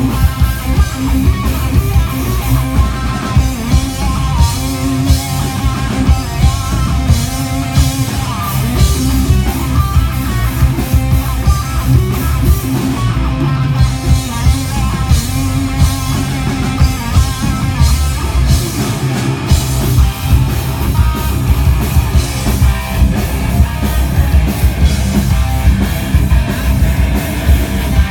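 Live band playing a loud rock song, with distorted electric guitars and a drum kit keeping a fast steady beat, heard through a smartphone microphone.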